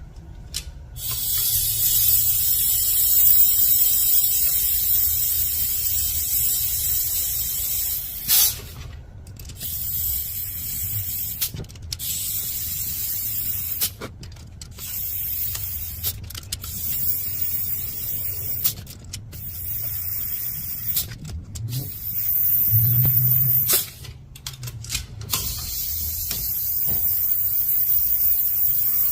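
Compressed-air blow gun hissing in long blasts with several short breaks, a second or two each.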